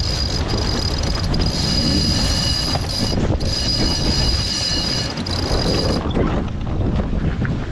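Wind buffeting the microphone with the rush of a sailing boat under way. Over it a steady high-pitched whine holds, then cuts off about six seconds in.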